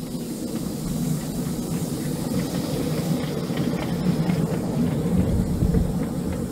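Miniature railway locomotive running along the track, heard from the train behind it: a steady running hum with hiss and faint regular clicks of the wheels on the rails.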